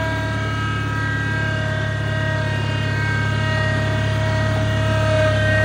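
Terramite T5C loader-backhoe engine running steadily, with a steady high whine from the machine over the engine hum.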